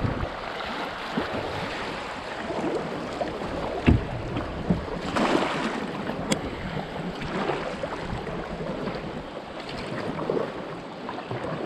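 Kayak paddle strokes splashing in fast-flowing river water, with water rushing around the hull. A sharp knock comes just before four seconds in.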